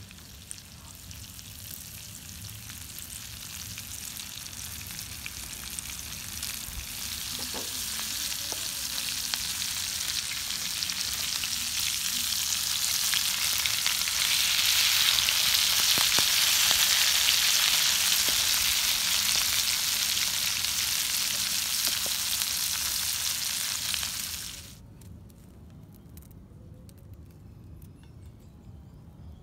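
Trigger fish pieces shallow-frying in hot oil in a pan over a wood fire, a dense sizzle that grows louder over the first half and then holds steady, with a few light clicks of a metal spatula turning the fish. The sizzle cuts off suddenly near the end.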